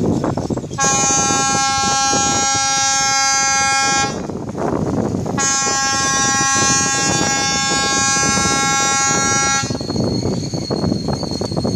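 A roll-on/roll-off ferry's horn sounding two long blasts, one of about three seconds and one of about four with a short gap between, each a single steady tone, over a constant rushing background noise.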